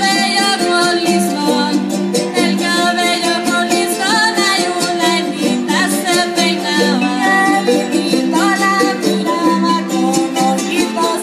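Live traditional Mexican folk music: small guitar-like string instruments strummed together, with singing over them.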